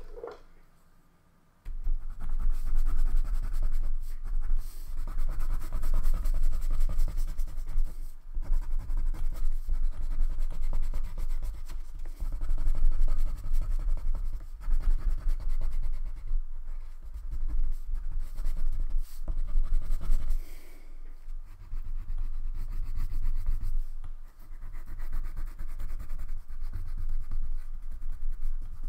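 Wax crayon colouring on paper: continuous scribbling strokes that start about two seconds in, after a brief quiet.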